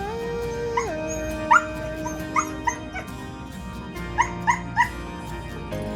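A dog whimpering in short, high, rising yelps, about seven of them, most in two quick clusters, over background music. The cries come while its burst facial hematoma is being tended and are a sign of pain or distress.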